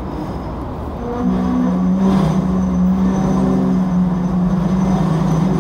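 Street traffic heard from a double-decker tram: a steady low motor hum that gets louder about a second in, among passing buses.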